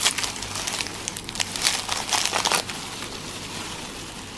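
Foil candy wrapper being twisted open by hands in disposable plastic gloves: dense crinkling and crackling, strongest for the first two and a half seconds or so, then dying down.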